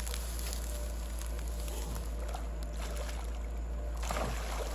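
Water sloshing as a hooked rohu splashes at the surface close to the bank, with a cluster of splashes near the end, over a steady low rumble.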